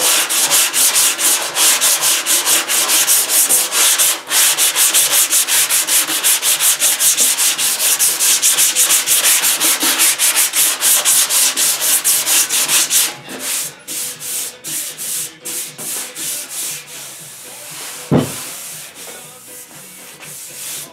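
Hand sanding block rubbed in quick back-and-forth strokes over the steel fender of a 1963 Chevy C10, block-sanding primer after dents were hammered out. The strokes turn lighter and sparser after about thirteen seconds and stop, followed by a single knock.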